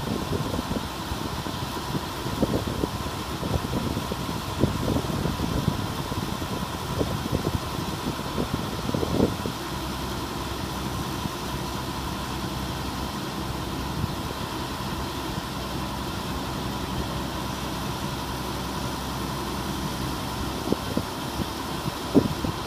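New Holland TC56 combine harvester running steadily while its unloading auger pours grain into a trailer: an even machine drone with a thin high whine. Uneven low wind buffeting on the microphone comes and goes through the first half and again near the end.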